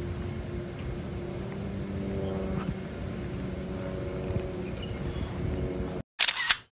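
A vehicle driving at low speed, with a steady low rumble and a faint hum. About six seconds in it cuts off abruptly. A brief loud hiss-like burst follows.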